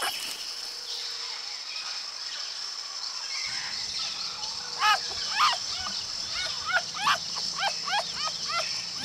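Red fox kits calling: a run of short, high calls, each rising and falling in pitch, about two a second. They start about four seconds in, over a steady high hiss.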